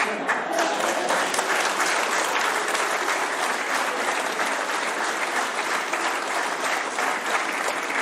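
A roomful of people applauding together: dense, steady clapping from many hands at once.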